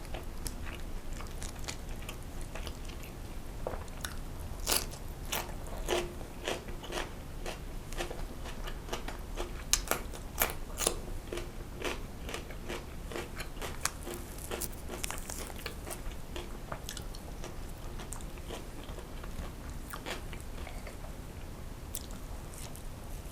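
Close-miked eating sounds: bites and chewing, with a run of sharp crunchy clicks from about 4 to 12 seconds in, then softer chewing.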